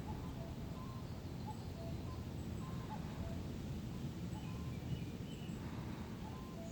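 Steady low rumble of wind, with faint short whistled bird calls scattered throughout.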